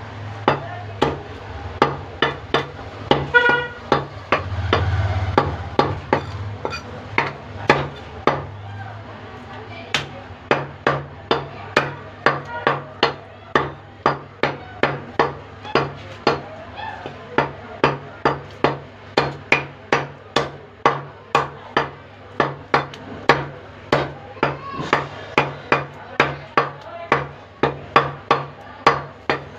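Large butcher's knife chopping chicken breast on a wooden log chopping block: sharp knocks about two to three a second, at an uneven pace. A brief pitched tone sounds about three seconds in.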